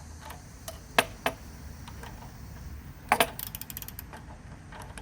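Socket wrench clicking and clinking in a few short bursts while unscrewing the nut on the bottom of a Briggs & Stratton lawnmower carburetor's float bowl.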